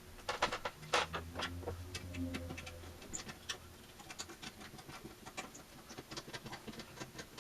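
Irregular small clicks and taps of metal parts and hand tools being handled while an old signal generator is taken apart, with a low hum during the first few seconds.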